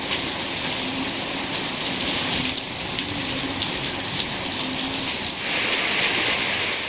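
Heavy tropical-storm rain pouring down steadily. About five and a half seconds in, the hiss becomes brighter and a little louder.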